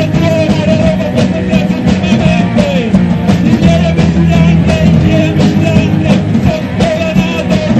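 Rock band playing live, with drums, bass and guitars and a voice singing over a steady beat.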